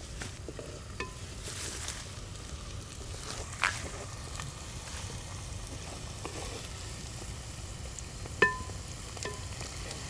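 Chopped onions and chillies frying in oil in a clay pot, stirred with a wooden spatula: a steady sizzle with scraping. The spatula knocks against the pot a few times, sharply about a third of the way in and loudest near the end, where the clay rings briefly.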